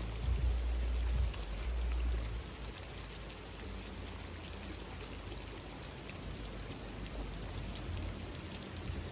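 Water pattering and splashing in a steady hiss, with a low rumble during the first couple of seconds.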